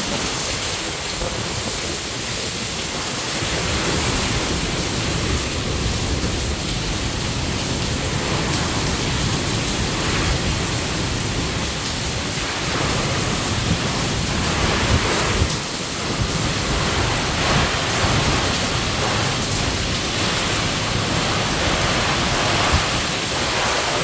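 Heavy monsoon rain pouring steadily in a storm, with wind rumbling on the microphone.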